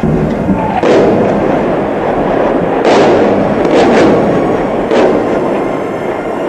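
A series of loud, sharp bangs over a steady din: five in about four seconds, two of them close together in the middle.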